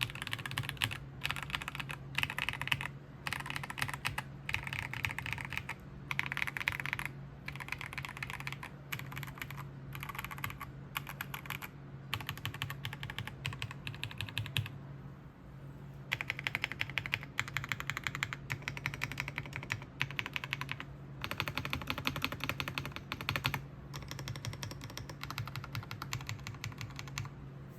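Typing on an AJAZZ AK820 Max mechanical keyboard with Flying Fish switches: fast runs of clacking keystrokes in short bursts, with a longer pause about halfway through. A steady low hum sits underneath.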